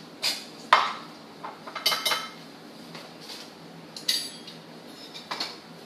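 Cutlery and dishes clinking: about seven sharp, unevenly spaced clinks as a utensil knocks against a mixing bowl and a plate during food preparation.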